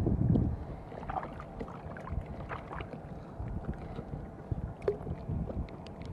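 Water lapping against a small outrigger canoe, with a steady low rumble of wind on the microphone and scattered short ticks.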